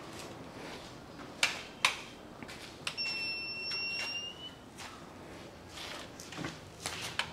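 Two sharp switch clicks, then a steady high electronic beep lasting about a second and a half from a generator's control panel as it is being switched on, followed by a few softer clicks.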